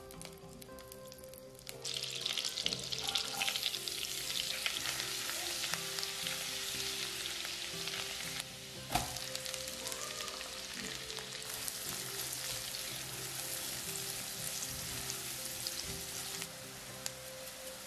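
Minced garlic, and later chopped onion, sizzling as they fry in butter and oil in a nonstick pan, with a spatula stirring and scraping through them. The sizzle starts suddenly about two seconds in.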